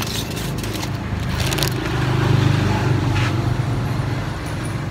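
A motor vehicle's engine drones low and steady, growing louder toward the middle and easing off again, as it passes. Short crackles of newspaper being handled come near the start and about a second and a half in.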